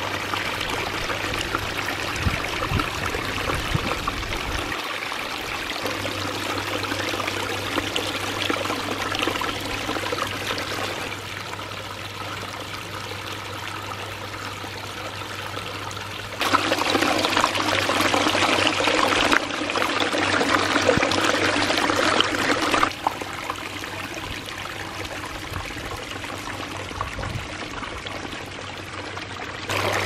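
Water from a small backyard pondless waterfall splashing over boulders and running down a short rock-lined stream bed: a steady rushing and trickling, louder for several seconds just past the middle.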